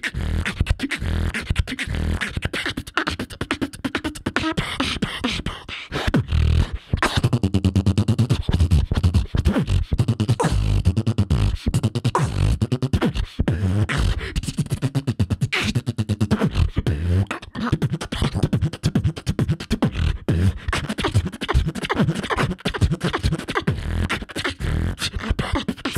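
Solo human beatboxing into a microphone over a PA: a fast, continuous beat of vocal kick drums, snares and sharp clicks with heavy bass. There is a brief break about six and a half seconds in.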